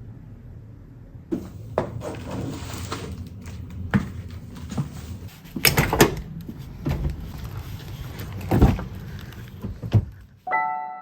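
A run of irregular knocks and thunks from objects or doors being handled, with the loudest clunks about six seconds in and again near nine seconds. Soft piano music begins just before the end.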